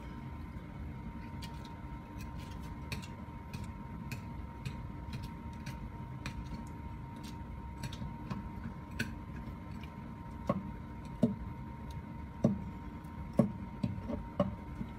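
Knife work on a wooden cutting board while a live pike conger is gutted: small sharp clicks scattered throughout, then from about ten seconds in several louder knocks against the board. A steady hum with a constant tone runs underneath.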